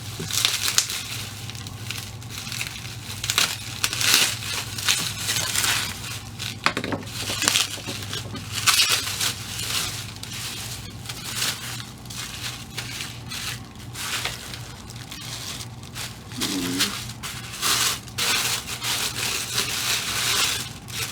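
Plastic packaging crinkling and tearing in irregular bursts as small packages are opened by hand.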